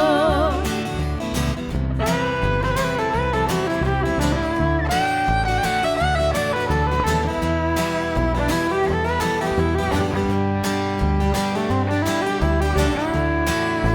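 Instrumental break in a live country song, with no singing: a lead instrument plays a sliding melody over a steady rhythm of strummed chords and a bass line.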